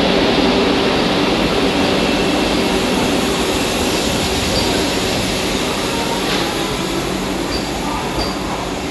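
Vande Bharat Express electric multiple-unit train running along the platform: a steady rumble of wheels on rail with a low motor hum, growing gradually quieter.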